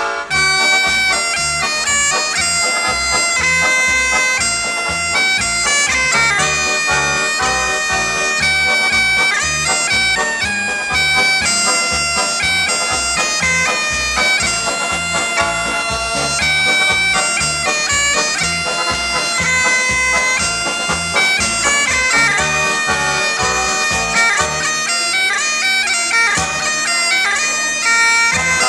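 Scottish dance-band music played live: a reedy, bagpipe-like melody over a held drone-like note and a steady bass and drum beat.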